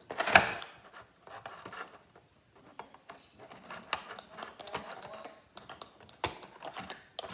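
Hard plastic toy parts of a Transformers Bumblebee figure clicking, scraping and rubbing as they are handled and twisted into shape, with a louder knock about a third of a second in and a sharp click near the end.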